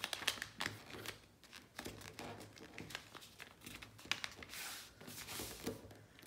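A sheet of paper being folded into a dart paper airplane's wing and creased by hand, with paper rustling and crinkling, short clicks and scrapes as the fingers press along the fold, and a longer swish about five seconds in.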